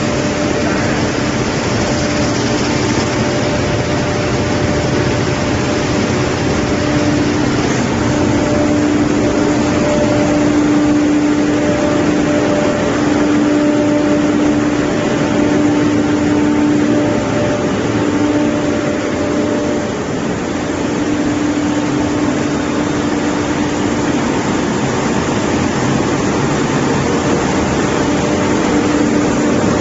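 Microwave sterilization machine running: a steady, even mechanical noise with a constant droning hum at a fixed pitch.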